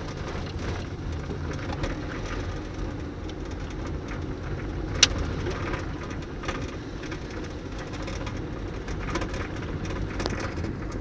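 A small car's engine and tyres heard from inside the cabin, creeping slowly along a rough country lane: a steady low rumble with scattered small ticks and rattles. There is one sharp click about five seconds in.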